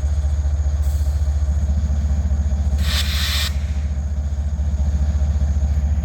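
Diesel freight locomotive idling with a steady low rumble. A short hiss of about half a second comes near the middle.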